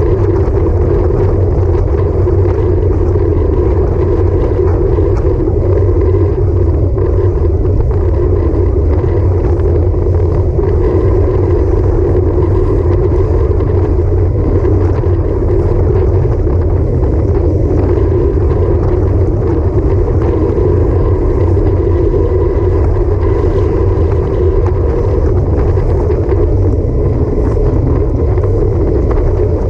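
Steady wind rush and road rumble on a handlebar-mounted camera of a road bike moving at about 23 mph, with a faint steady whine above it.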